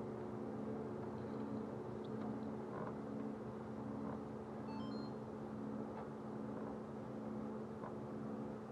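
A small outboard motor idling with a steady low hum. A few faint, short high chirps come about five seconds in.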